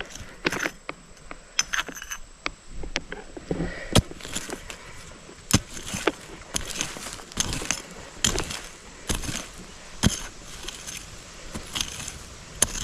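A hand digging tool chopping and scraping into soil, an irregular run of sharp strikes about once a second, working a buried target loose from the hole.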